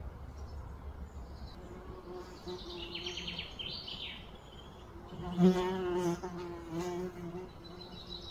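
A flying insect buzzes close by, its wingbeat hum swelling and fading and loudest about halfway through. Birds chirp in the background.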